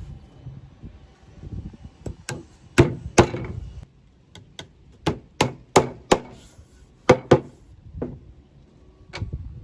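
A hammer knocking on wood: about a dozen sharp knocks, mostly in quick pairs, with short pauses between.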